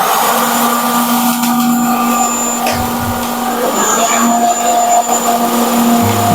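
Cold spark machines firing together: a loud, steady, blower-like rush with a held hum, switching on right at the start. Low musical notes come in near the end.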